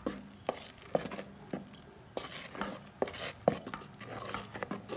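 A spoon stirring wet rice flour into sugar syrup in a metal pot, knocking and scraping against the pot's sides in irregular clicks about twice a second.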